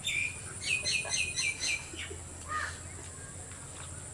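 A wild bird chirping: a quick run of about five sharp, repeated notes about a second in, then a single lower call. A steady high insect whine runs beneath.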